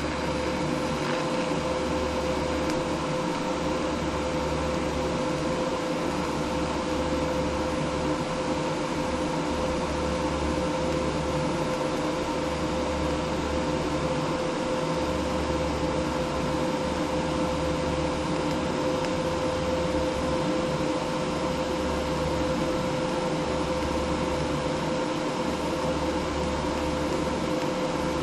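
Steady machine hum and fan noise of a running Primeweld 225X TIG welder, with one steady tone and a low hum underneath that drops out briefly every few seconds.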